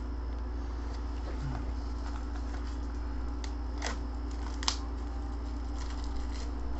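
Steady low electrical hum with a faint hiss. A few light clicks fall about three and a half to five seconds in, the loudest near the end of that run.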